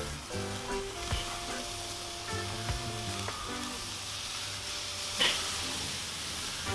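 Raw ground-beef hamburger patties sizzling on a hot charcoal grill in a steady hiss, with one short louder crackle about five seconds in.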